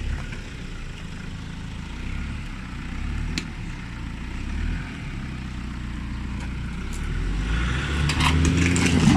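A Nissan Patrol 4x4's engine running under load, with a steady low drone that builds louder over the last couple of seconds as its bull bar pushes against an Opel Astra's front end. A cluster of sharp clicks and cracks comes near the end.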